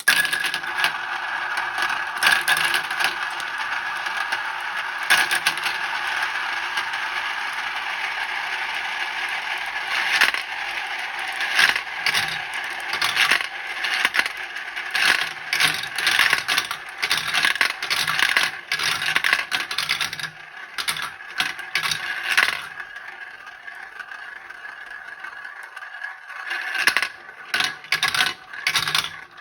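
Chrome steel marbles rolling and clattering down a HABA wooden marble run, with a dense, continuous rattle of many marbles at once. After about 22 seconds it thins out to scattered separate clicks as the last marbles come down.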